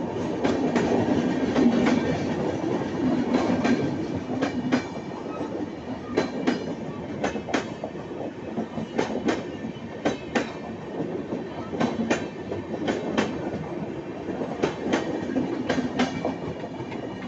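Indian Railways LHB passenger coaches passing close by at speed: a steady rumble with the clickety-clack of wheels striking rail joints, the sharp clicks often coming in quick pairs as each bogie's wheelsets cross.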